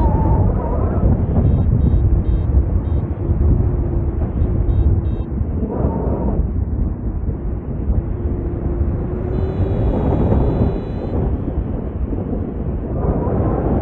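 Wind rushing hard over the microphone in paraglider flight, with a wavering whistle in it. Faint short high beeps come in a few quick runs in the first half, and a faint steadier high tone sounds about ten seconds in.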